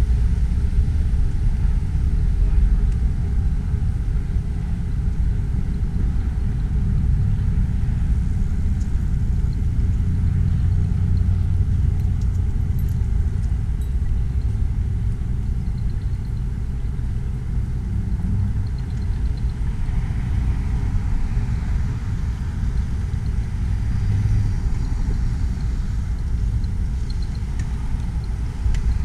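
Steady low rumble of outdoor noise, unbroken and with no clear events.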